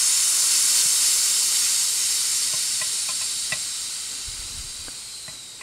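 Air hissing out of a pressure chamber's vent as the chamber is slowly depressurised, the hiss fading steadily as the pressure falls back toward normal. A few faint ticks sound in the second half.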